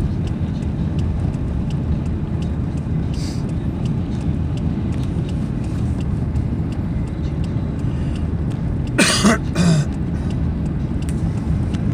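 Car driving on a highway: a steady low rumble of engine and road noise. About nine seconds in there is a short, louder cough or throat-clearing.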